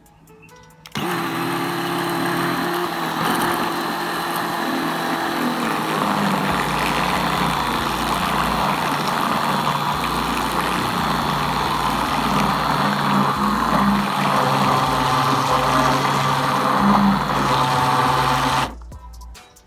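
Handheld immersion (stick) blender motor running steadily while blending thick cooked condensed milk to smooth out its lumps. It switches on about a second in and cuts off shortly before the end.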